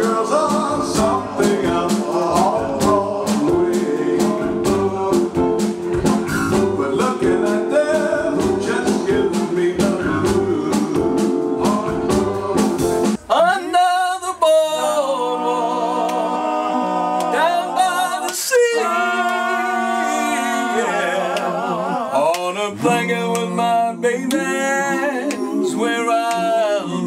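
Male vocal group singing with a live band over a steady drumbeat; about 13 seconds in it cuts to the men singing unaccompanied in close harmony, with no instruments or beat.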